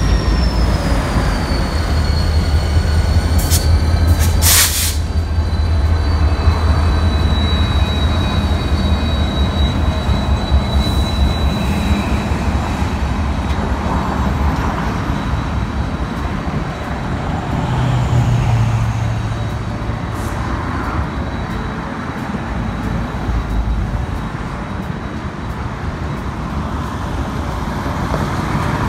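Diesel freight locomotives rumbling past at low speed, with a high wheel squeal that slides down and then holds through the first part. Two sharp clanks come around four seconds in.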